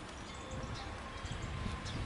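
Wind buffeting the microphone as a low, uneven rumble, a little louder from about half a second in, with faint short high chirps over it.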